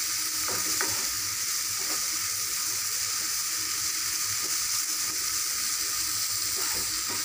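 Small dried fish and onions sizzling steadily in oil in a non-stick kadai while being stirred, with a few light scrapes against the pan in the first two seconds.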